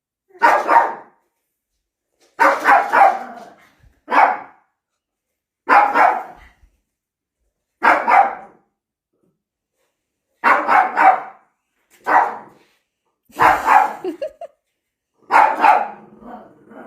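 A dog barking in short runs of a few barks each, a run about every two seconds.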